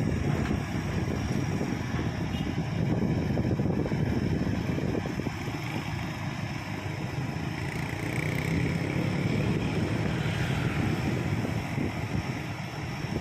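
Heavy engine running steadily at a constant speed.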